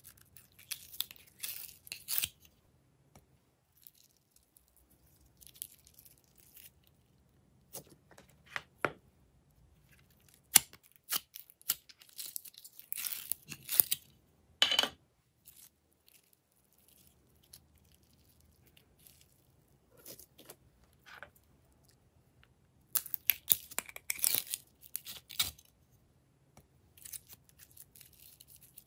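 Glossy slime squeezed, lifted and stretched by hand: sticky crackling and snapping in bursts of a second or two, with quiet gaps between.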